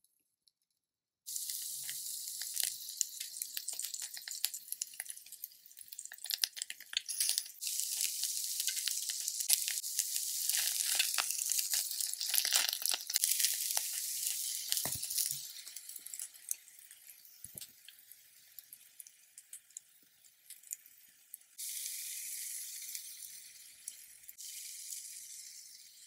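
Oil sizzling and crackling in a miniature frying pan as tiny battered mushroom pancakes (beoseot-jeon) fry. The sizzle starts about a second in, grows louder, dies down over the middle, and a fresh burst of sizzling starts near the end.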